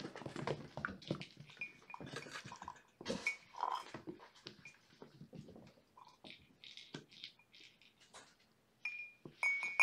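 A glass drinking tumbler being moved and tipped over on the floor, with scuffling and rustling and several light glass clinks; the loudest clinks come near the end.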